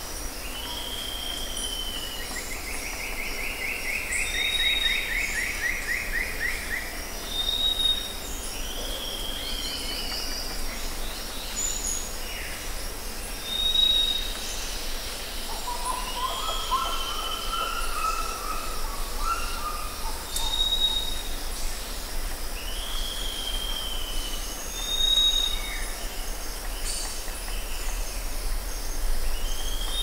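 Rainforest ambience: several birds calling over a steady, high insect drone. A short high whistle and a falling call repeat every few seconds, with a long descending trill a few seconds in and a lower warbling call around the middle.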